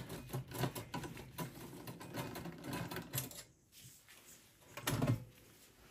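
Screwdriver backing out a screw from a sheet-metal hard drive cage inside a PC case: a quick run of small metallic clicks and ticks for about three seconds, then a single dull knock about five seconds in.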